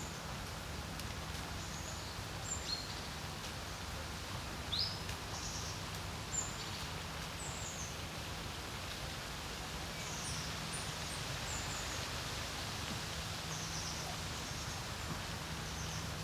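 Wind at a lake, a steady rushing with a low rumble, with small birds giving many short, high chirps and calls.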